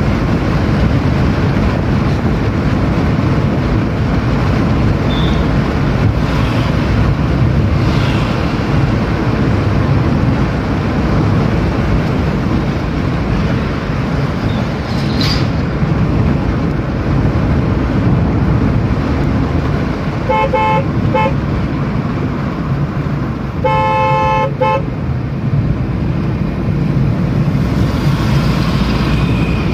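Steady engine and road noise inside a moving car's cabin, with a car horn sounding: a few short toots about twenty seconds in, then a longer honk some three seconds later.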